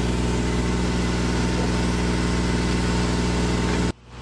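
A heavy engine idling at a steady speed: a constant low hum with no change in pitch. It cuts out abruptly near the end, and a quieter engine sound comes in and slowly grows louder.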